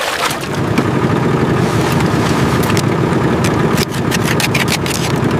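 Small boat's engine running steadily at low revs, with scattered light clicks on top.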